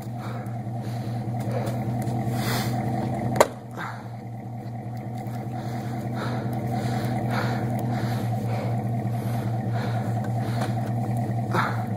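Dodge Ram pickup's engine running steadily, with one sharp slam about three and a half seconds in as the driver's door shuts.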